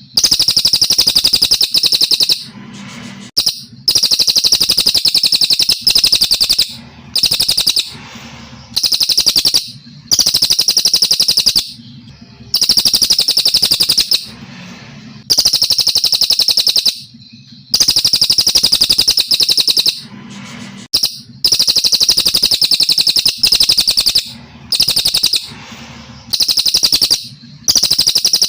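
Brown cililin from Kalimantan singing in long, clean phrases: a rapid high trill lasting one to two seconds, repeated about a dozen times with short pauses between.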